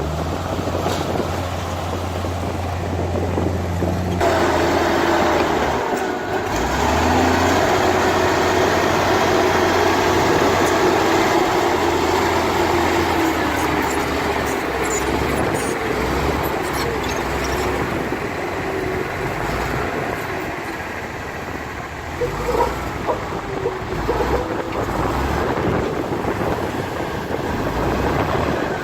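Heavy diesel earthmoving machinery running steadily. It gets louder and harsher about four seconds in, with some knocks and clanks a little after twenty seconds.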